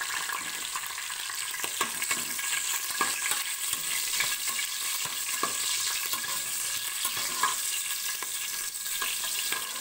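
Green chillies and whole spices sizzling in hot ghee and oil in an aluminium pressure cooker, with a metal spoon scraping and clicking against the pan as they are stirred.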